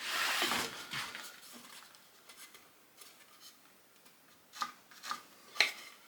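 A wooden workpiece scraped and rubbed against the bench for about a second, then three light knocks of wood and tools being handled near the end.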